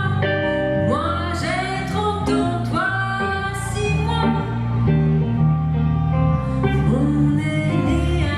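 A woman singing a French chanson, accompanied by guitar and a low bass line.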